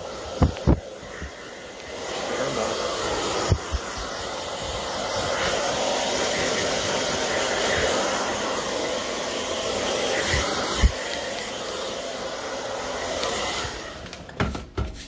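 Handheld hair dryer blowing steadily, switching on a second or two in and off shortly before the end, with a few short knocks along the way.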